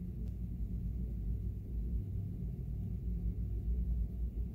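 Steady low rumble with a faint hum, and one faint click about a third of a second in.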